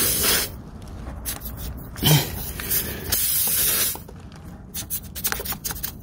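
A tyre puncture-repair tool is pushed in and out of the hole in the tyre, giving spells of hissing and scraping, the longest about three seconds in, followed by scattered clicks near the end.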